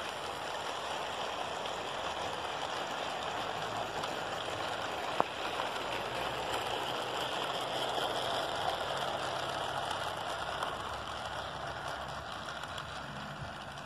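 HO-scale model freight train running past on the track: a steady rolling rush of wheels on rail that swells and then eases off as the boxcars go by, with one sharp click about five seconds in.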